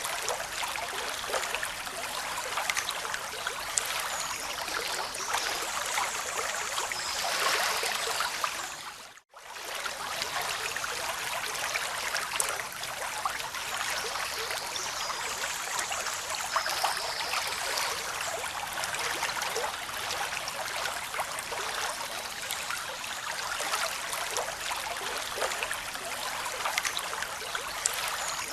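Steady rushing water, a continuous hiss-like wash. It fades and cuts out for a moment about nine seconds in, then resumes.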